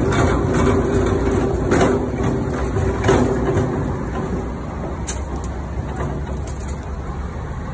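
Steady low mechanical rumble with a hum over it that fades out about halfway through, and a few light knocks.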